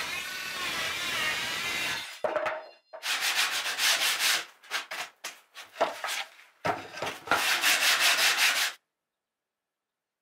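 A Bosch cordless circular saw running as it cuts plywood for about two seconds. It is followed by a series of quick, rough rubbing strokes of hand-sanding on the plywood, which stop abruptly.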